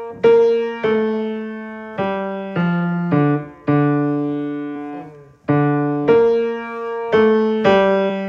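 Piano playing the bass line of a choral piece in three-beat time, one or two notes struck about every half second to second, each ringing and fading before the next.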